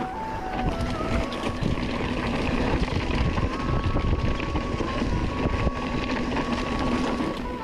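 Wind buffeting an action camera's microphone and a mountain bike rattling down a rocky dirt trail, with a slow melody of held notes on top as background music.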